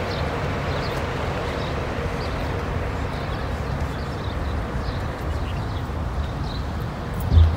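Outdoor car-park ambience: a steady wash of traffic noise with a low rumble, faint high chirps scattered through it, and a single low thump near the end.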